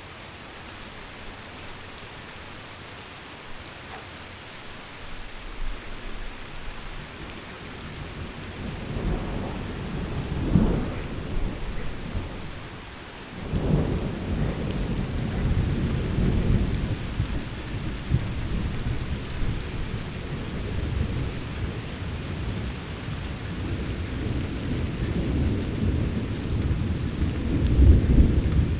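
Heavy rain falling steadily with rolling thunder. A low rumble builds about a third of the way in and breaks off, then a second roll starts abruptly near the middle and rumbles on, loudest near the end.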